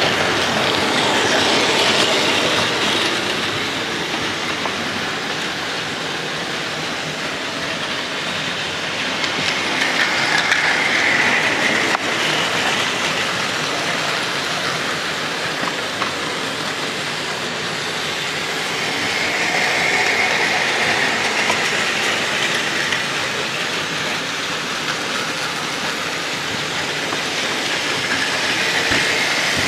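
Several battery-powered Plarail toy trains running on plastic track: a steady mechanical running noise of small motors and wheels on the track. It swells and fades about every nine seconds as a train passes close by.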